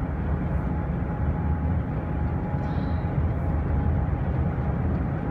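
Steady road and engine noise inside a moving car's cabin, a low even rumble with a faint steady hum.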